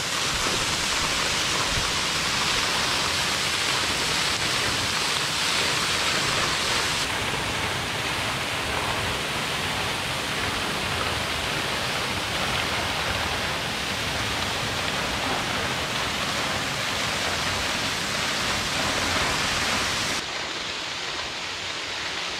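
White Falls, a waterfall pouring off a rock overhang and splashing steadily onto the rocks and pool below. The sound drops a little near the end.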